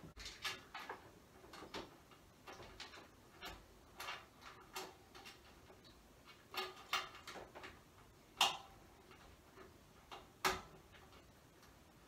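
Irregular clicks, taps and light knocks of a network device being handled and fastened into a metal 12U open-frame rack, its mounting ears and screws meeting the rack rails. Two sharper knocks stand out, one about eight seconds in and another about two seconds later.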